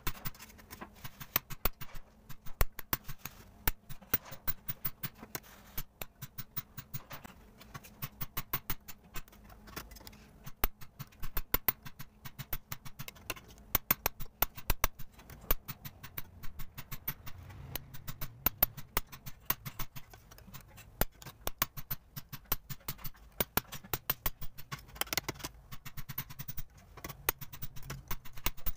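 Hammer striking brass sheet by hand: quick runs of sharp taps, several a second, with short pauses between runs.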